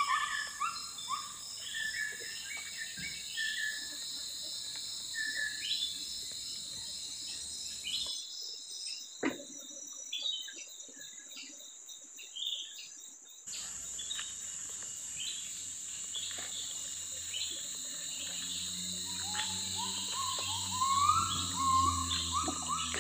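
Tropical forest insects trilling steadily, with a bird calling in repeated series of short rising notes at the start and again near the end. The high insect sound cuts out abruptly for a few seconds mid-way, then returns.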